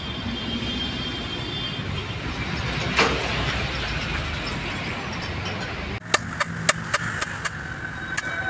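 A run of about six sharp hammer blows on the steel housing of a truck differential, coming about three a second and starting some six seconds in. Before that there is steady outdoor workshop noise with a single knock about three seconds in.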